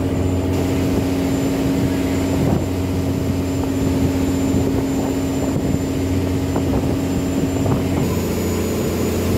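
Small wooden motor boat's inboard engine running steadily under way, a low, even drone with a higher steady hum over it.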